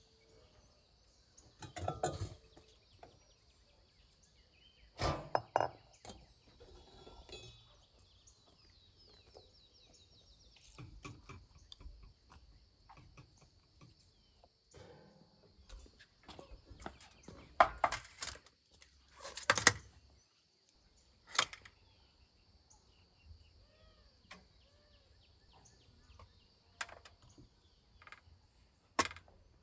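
Scattered clinks and knocks of metal kitchen tongs against a wire grill rack and a glass bowl as mushrooms are handled, with a few louder metal clanks about two-thirds of the way in. A faint steady high-pitched tone sits underneath.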